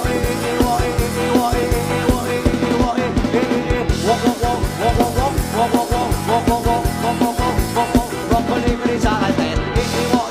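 Rock-style music with a steady drum beat.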